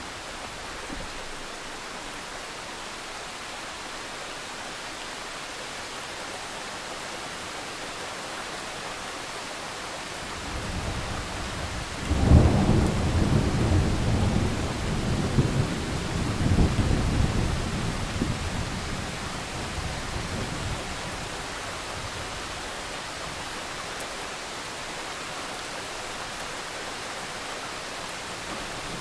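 Steady rain with a thunderclap: a low rumble builds about ten seconds in, breaks into a sharp crack a moment later, and rumbles on for several seconds before fading back into the rain.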